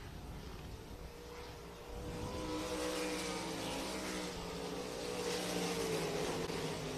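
Pack of 305 sprint cars' V8 engines running at race speed on a dirt oval. The sound grows louder about two seconds in, with the engine pitch wavering up and down as the cars come around.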